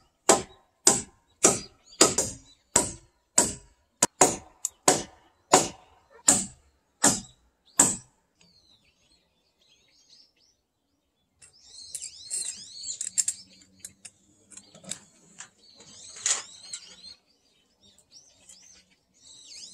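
Steady hammer blows on the log rafters, about one and a half strikes a second, stopping about eight seconds in. After a short pause, birds chirp repeatedly.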